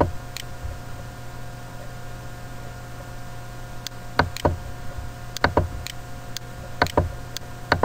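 Computer mouse clicks, scattered and sharp, several in quick pairs, mostly in the second half, as a menu is opened and an item picked. Under them runs a steady electrical hum and hiss.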